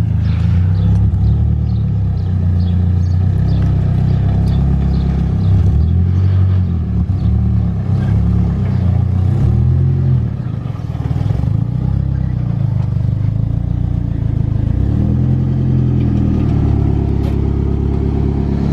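Nissan Silvia S14's engine running as the car drives in, its low note rising and falling with the throttle and easing briefly about halfway through.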